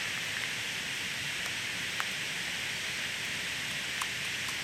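Steady rain falling, an even hiss with a few sharper single ticks of drops about two and four seconds in.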